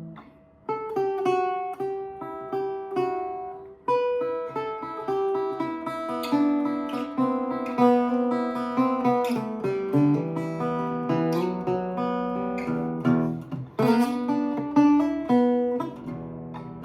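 1960s Harmony Stella acoustic guitar played by hand: single picked notes and short melodic runs that ring on, mixed with a few strummed chords. It has a woody, punchy tone.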